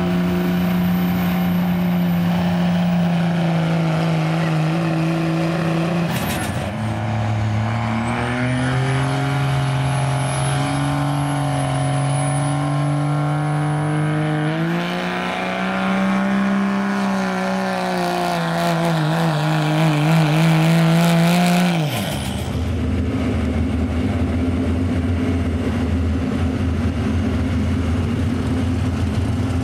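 Diesel engines of Dodge Ram pickups working hard under load as they tow a weight-transfer pulling sled, one truck after another. The engine note holds steady, drops sharply about six seconds in and climbs back in steps, with a thin high whine over it for a while. About two-thirds of the way through it switches abruptly to another truck's lower, rougher note.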